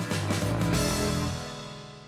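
Music: a held electronic chord with deep bass that swells briefly and then fades away.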